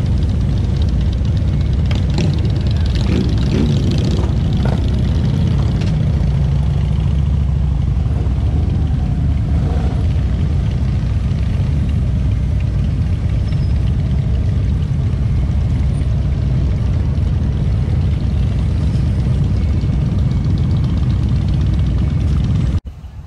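Touring motorcycle engines rumbling steadily at low speed in a slow-moving procession, heard from the seat of one of the bikes. The sound cuts off suddenly near the end.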